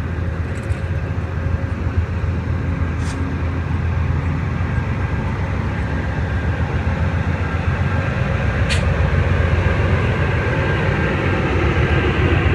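Amtrak passenger train's diesel locomotive running slowly, a steady low rumble with a hum that grows gradually louder as the train draws nearer. Two brief clicks can be heard, one a few seconds in and one later.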